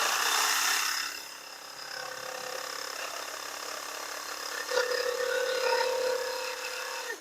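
Impact driver spinning a pipe-cleaning brush bit around a dirty copper pipe, scouring off paint and grime: a steady mechanical whirr with scraping, loudest in the first second. A higher tone joins about five seconds in, and the sound stops abruptly at the very end.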